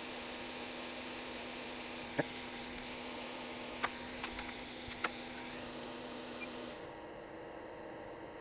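A small electric fan or blower running steadily with a low hum and hiss, switching off about seven seconds in. A few light clicks sound over it.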